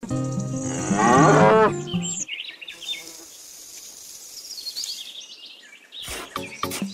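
A cow mooing loudly, a long call that bends in pitch. It is followed by faint high bird chirps, then a quick run of short taps near the end.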